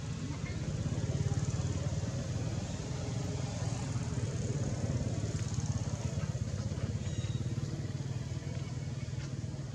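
Steady low engine drone, as of a motorbike running nearby, holding the same pitch throughout.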